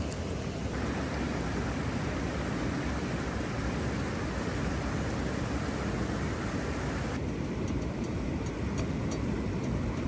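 Steady rushing of river water pouring over a low weir, with a few faint clicks near the end.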